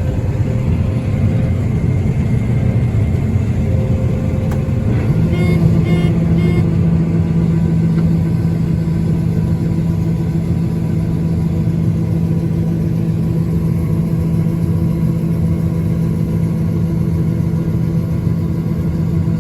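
Farm machinery's diesel engine running steadily during corn harvest. About five seconds in a steady low hum sets in and holds, with three short beeps soon after.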